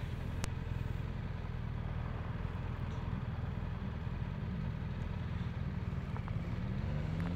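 BMW R1200RT's flat-twin engine running at low revs, steady at first, with the revs rising near the end.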